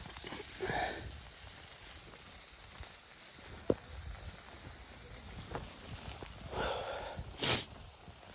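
Wood fire in a tent stove hissing steadily with light crackles and a sharp pop about four seconds in. Two louder brief rustling noises come near the start and near the end.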